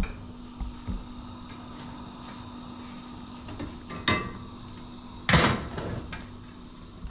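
Aluminium kettle and cooking pots knocking against each other and the gas stove's grates: a few sharp metal clanks with a short ring, the loudest about five seconds in, over a faint steady hum.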